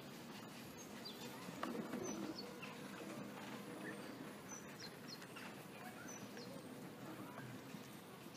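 Small birds chirping intermittently over steady outdoor background noise, with a brief louder rustle about two seconds in.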